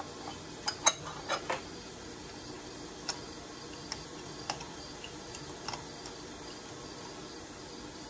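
Scattered sharp clicks and light knocks as a brass trumpet valve casing, clamped in a wooden holder, is handled and repositioned at a metal lathe between hole-saw cuts. A quick cluster of clicks comes first, then single ticks every second or so, and a louder knock at the very end.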